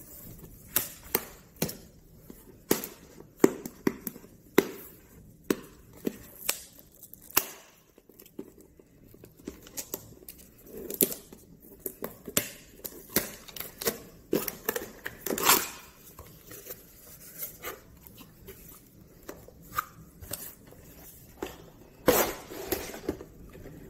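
Cardboard retail box being handled and opened by hand: many sharp taps and clicks with some tearing and crinkling, then a longer rustle near the end as the lid is lifted open.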